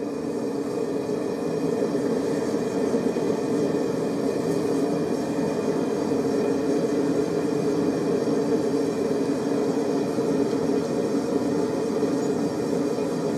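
Forge running with a steady, even roar while a railroad-spike knife blade is heated for hardening.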